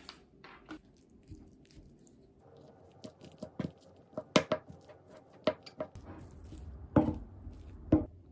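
Wooden spoon mixing bibimbap in a ceramic bowl: soft squishing of rice and vegetables, with sharp taps and clicks of the spoon against the bowl, most of them from about three seconds in.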